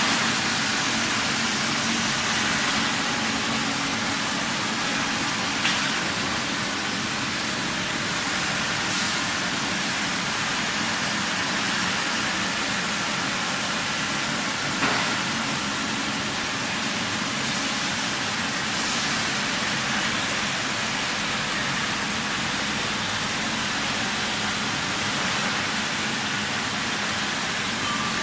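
Steady machinery noise of a pipe welding line: a constant hiss over a low hum, with two short sharp clicks about six and fifteen seconds in.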